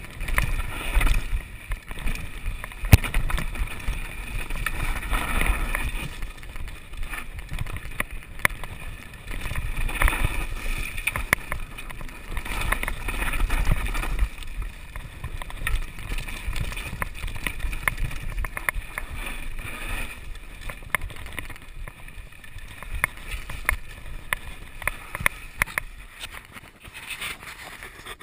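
Mountain bike descending a rough, dry rocky trail, heard from a camera on the rider: wind noise on the microphone over tyres on loose gravel, with many sharp knocks and rattles from the bike over rocks.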